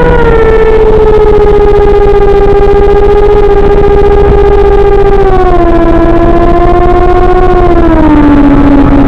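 Electric motor and propeller of a small model plane whining steadily in flight, its pitch easing down and dropping in two steps about five and a half and eight seconds in as the throttle is pulled back.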